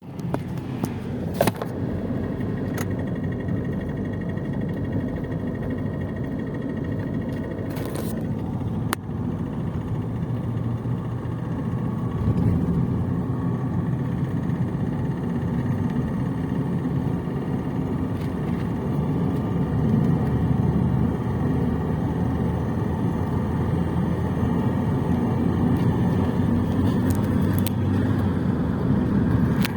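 2003 Ford Mondeo Mk3 2.0 TDCi diesel engine running, getting louder about twelve seconds in, with a knock under acceleration that the owner takes for a knocking fuel injector.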